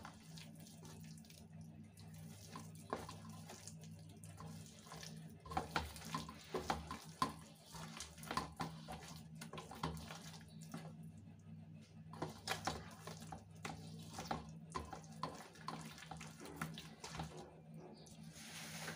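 A hand mixing a wet curd-and-gram-flour marinade in a stainless steel bowl: irregular soft squelches and scrapes of fingers against the steel, over a faint steady low hum.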